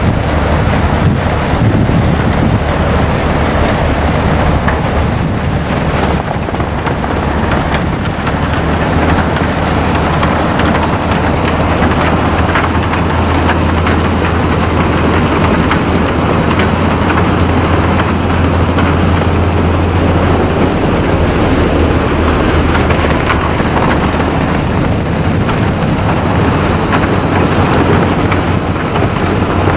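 Locomotive fitted with a snowplow blade ploughing through a deep snowbank: a steady low drone from the train under a continuous rushing hiss of snow being thrown up and spraying over the microphone.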